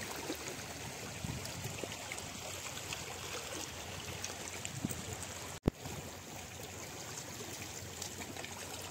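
Shallow seawater streaming and trickling between rocks at low tide, a steady wash with a few faint ticks. About five and a half seconds in the sound drops out for an instant and a click is heard.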